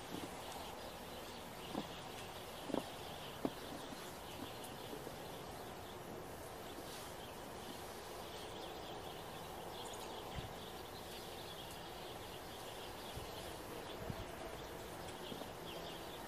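Footsteps crunching in snow, with a few sharp crunches in the first four seconds, over a steady outdoor hiss.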